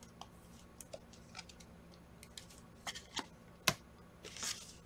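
Faint handling of trading cards by hand: scattered light clicks and taps, one sharper click about three and a half seconds in, and a soft rustle near the end, over a low steady hum.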